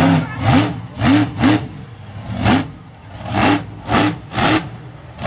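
Monster truck engine revved in about eight short, sharp throttle blips, each one rising quickly in pitch, with the engine dropping back between them while the truck climbs over junk cars.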